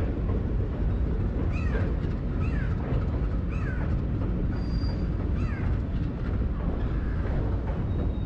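Steady running rumble of a moving passenger train on the track, heard from on board. Four short swooping calls sound over it between about one and a half and five and a half seconds in.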